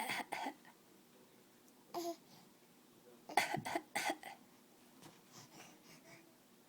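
A baby coughing on purpose as a put-on trick, not from illness. Short, separate coughs come in bursts: a couple at the start, one about two seconds in, and a quick run of them around three and a half to four seconds, then fainter little vocal sounds.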